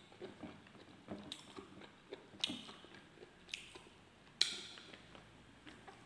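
A man chewing a mouthful of lechon and rice with wet smacking, broken by a few sharper clicks and crackles, the loudest about four and a half seconds in.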